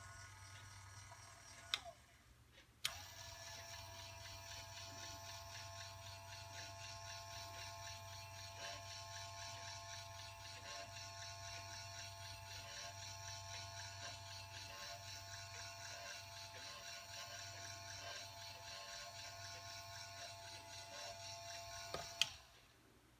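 Small motorized display turntable running with a faint, steady whine over a low hum. It is switched on with a click about three seconds in and clicks off near the end.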